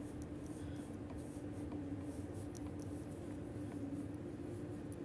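Faint scratchy rustling of fibre stuffing being pushed with the fingers into a small crocheted piece, over a steady low hum.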